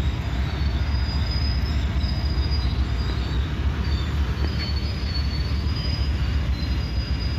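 Freight cars rolling past as the train slows for a stop: a steady low rumble of wheels on rail, with thin high wheel squeals that come and go.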